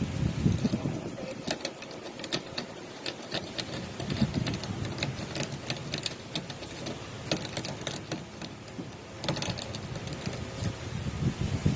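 Irregular, rapid clicking and ticking of a lock pick working the pins inside a toolbox lock.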